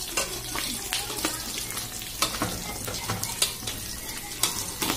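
Sapsap (ponyfish) frying in hot oil in a metal wok: a steady sizzle with frequent sharp pops and crackles of spitting oil.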